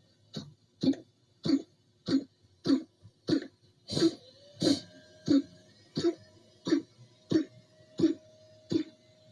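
Dog coughing in a steady run of short, harsh coughs, about three every two seconds, fourteen in all.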